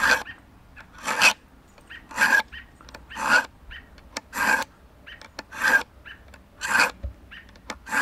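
The spine of a stainless steel steak knife drawn again and again through a small handheld pull-through knife sharpener: a rasping scrape of metal on each stroke, about one stroke a second, eight strokes. The sharpener is grinding metal off the square back of the blade to form a new edge.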